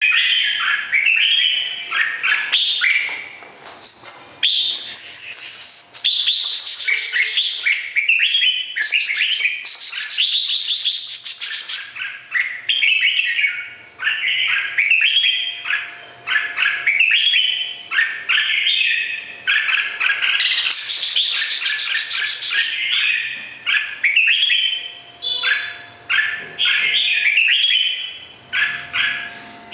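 Red-whiskered bulbul singing long runs of slurred, whistled phrases with short pauses, broken a few times by stretches of rapid, harsh ticking notes.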